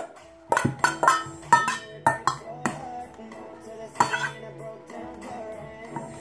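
A utensil clinking and knocking against a mixing bowl in a quick run of sharp strikes, as glue and borax are stirred into slime, then easing off about four seconds in; background music plays throughout.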